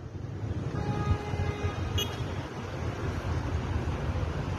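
Street noise in a flooded avenue: a steady low rumble of vehicle engines, with a faint held tone about a second in and a short click near the middle.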